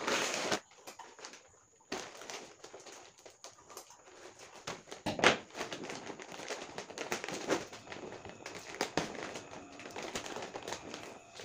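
Plastic potato-chip packet crinkling and rustling as it is handled and pulled open by hand, in irregular crackles, with one sharper crack about five seconds in.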